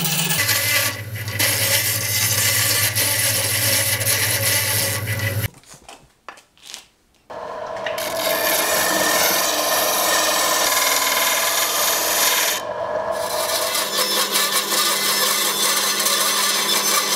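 Bandsaw running and cutting a wooden hammer handle. After a short pause about five seconds in, a disc sander grinds the wood, and near the end the bandsaw cuts again with a different steady hum.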